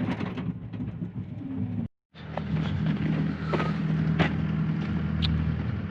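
John Deere 333E compact track loader's engine running, with scattered clicks and knocks over it. The sound drops out completely for a moment about two seconds in, then the engine runs on steadily.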